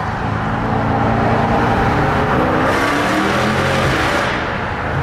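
Mercedes-Benz C63 AMG's 6.2-litre M156 V8 with long-tube headers and an Armytrix full exhaust, pulling hard under load, heard from inside the cabin.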